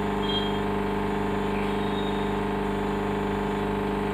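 Digital multimeter's continuity buzzer giving one steady, unbroken buzz as the probes rest across a component: the sign of a short on the motherboard.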